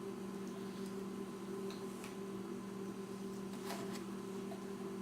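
Steady low electrical hum of room tone, with a few faint light clicks or taps; the clearest tap comes a little under four seconds in.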